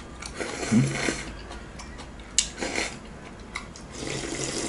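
People slurping cold soybean-milk broth straight from their bowls, with a brief low hum of a voice about a second in. A single sharp click about halfway through.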